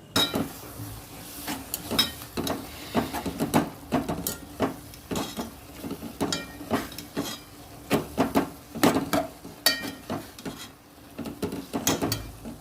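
A metal cooking utensil knocking and scraping against a cooking pan in irregular, ringing clinks.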